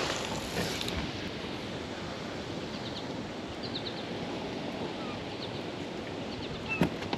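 Open-air ambience of wind and lapping water, steady throughout, with a few faint, short high chirps and a brief knock near the end.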